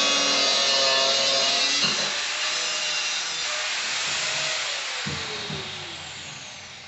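Power tool running hard, then switched off about two seconds in and winding down, its pitch falling as it coasts to a stop.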